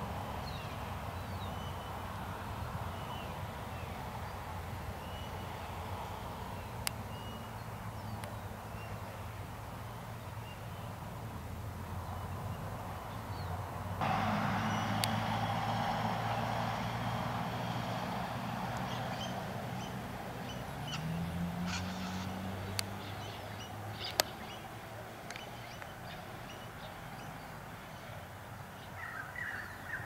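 Outdoor ambience: a steady low hum under faint, scattered high bird chirps, with a broader rush of noise coming in about halfway through and a few sharp clicks.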